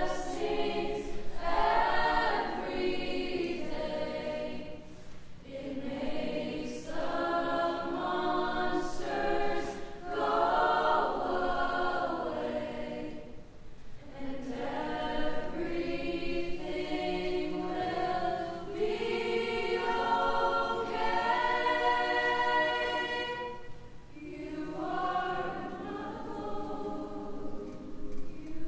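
School choir singing in long held phrases, with brief breaks between phrases about five, thirteen and twenty-four seconds in.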